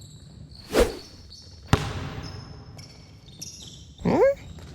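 Sound effects from a dodgeball game: a short whoosh, then a sharp hit that rings out and fades over about a second. Near the end comes a short rising pitched sound, over a faint steady chirping of crickets.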